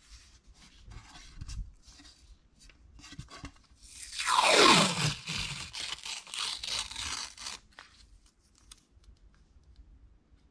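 Masking tape handled by hand: soft crackling and crinkling, then about four seconds in a loud screech of tape pulled off the roll that falls in pitch, followed by a few seconds of crackly tearing of the strip. Faint ticks near the end as the tape is pressed down.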